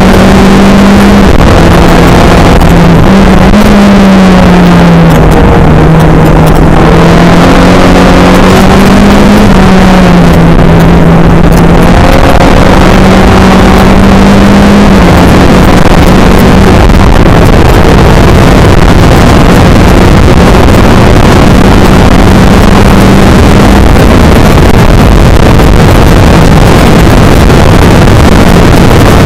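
Skip Barber race car engine running hard under a heavy rush of noise, its pitch rising and falling several times with throttle and gear changes; the recording is overloaded at full level.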